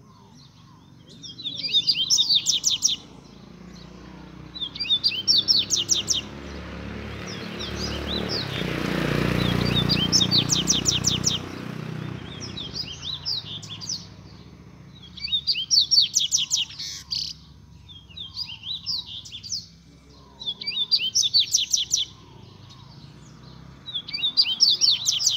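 Double-collared seedeater (coleirinho) singing: bursts of quick repeated notes, each about a second long, coming again every few seconds. A rushing noise swells and fades in the middle.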